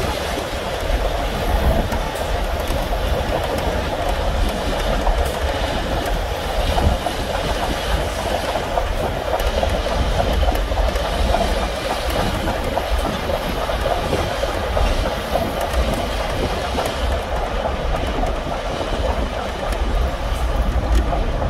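Union Pacific 4014 steam locomotive and its train running alongside, heard from a moving car: a continuous rumble with wheel clatter over a deep, steady drone.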